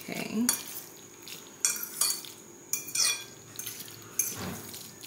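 Metal fork stirring macaroni in a ceramic bowl, with irregular clinks and scrapes against the bowl.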